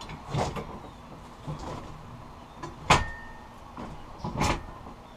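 Metal clunks from a Harbor Freight compact bender as a strip of 1/8-inch steel is bent in it: four separate knocks a second or so apart, the loudest about three seconds in, leaving a short metallic ring.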